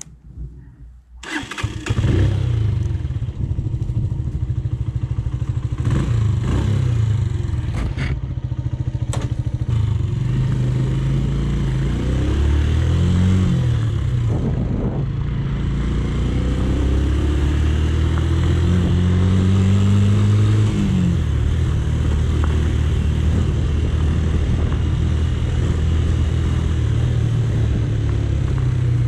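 Romet K125 125cc motorcycle engine starting about a second and a half in, then running as the bike pulls away and rides, its pitch climbing and dropping back twice with the throttle. A few sharp clicks come in the first ten seconds.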